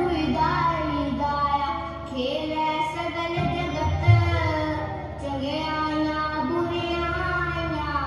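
Children singing a slow melody over instrumental accompaniment with a steady low drone, in phrases that pause briefly about two and five seconds in.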